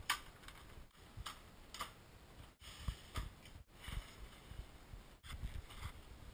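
Faint clicks and knocks of a blower door's metal frame being handled and fitted into a doorway, with the rustle of its nylon shroud. Sharp clicks come in the first couple of seconds, duller knocks later.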